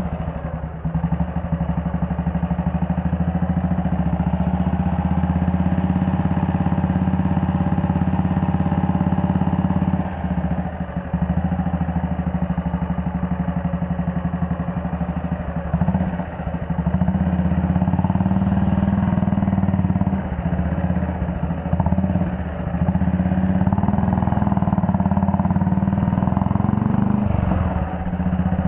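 1939 Red Panther Model 40's single-cylinder engine running, heard close up from the handlebars as the bike moves off and rides along, its note dipping briefly a few times.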